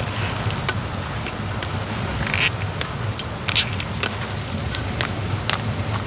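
Food sizzling on a hot griddle: a steady hiss with scattered pops and crackles, under a low hum.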